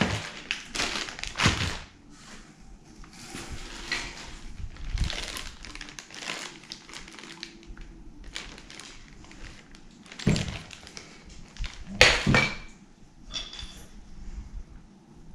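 Plastic bags of parts rustling and crinkling as they are handled and unpacked from a cardboard box, with scattered knocks as items are set down, the loudest about 10 and 12 seconds in.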